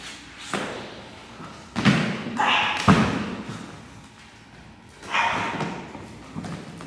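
Staged foam-sword fight: several separate thuds and knocks from foam blades striking and bodies and feet hitting a wooden gym floor, the loudest about three seconds in.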